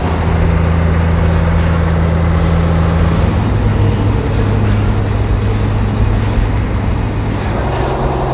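Diesel semi-truck engines running with a steady low hum, the pitch of the hum changing abruptly about three seconds in and again near the end as the sound switches from one truck to another.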